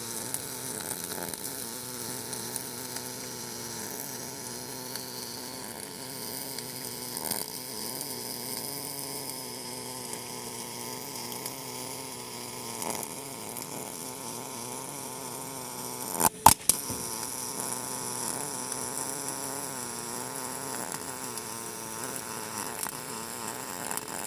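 Kemppi WiseRoot+ MIG welding arc running with a steady, even buzz while laying a root pass. A pair of sharp clicks stand out about two-thirds of the way through.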